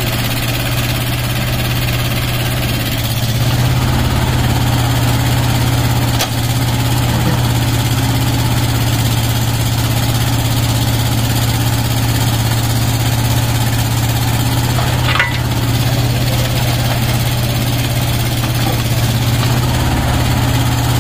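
Tata Hitachi mini excavator's engine running steadily while the machine swings and digs, getting a little louder about three and a half seconds in. A single sharp knock comes about fifteen seconds in.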